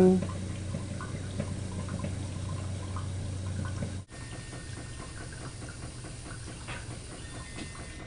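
Maytag dishwasher filling with water through its inlet valve: a steady hiss of water running into the tub. A low hum under it cuts off about four seconds in.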